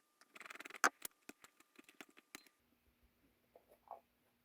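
Small clicks, taps and a short scrape as a 1932 Ford tail light assembly is handled and opened, with the sharpest click about a second in. After about two and a half seconds only a few faint clicks remain.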